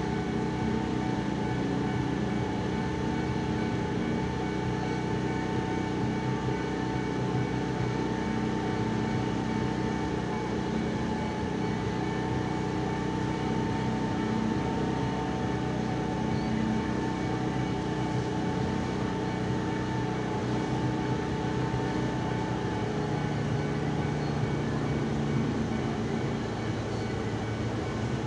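Steady mechanical hum of a train: several steady tones over a low drone.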